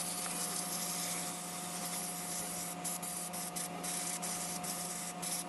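An aerosol can of brake cleaner spraying in a steady hiss, with a few brief breaks near the middle, over a faint steady hum.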